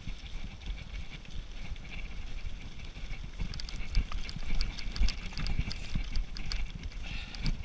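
Downhill mountain bike (Specialized Demo 7) clattering down a loose rocky track: tyres crunching over stones, with a low rumble and a quick run of sharp rattling clicks that thickens about halfway through.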